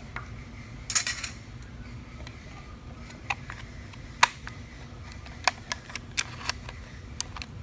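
A short hiss of blown air about a second in, then a series of sharp metal clinks and knocks as a small metal part is taken out of a plywood drilling fixture and the next one set in and held down with a toggle clamp. A steady low hum runs underneath.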